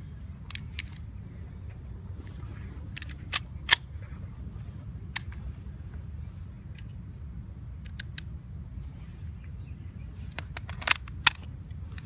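Sharp metallic clicks of a 9mm pistol being handled, about a dozen in all, several in quick pairs a few tenths of a second apart, the loudest pair a little over three seconds in and another near the end.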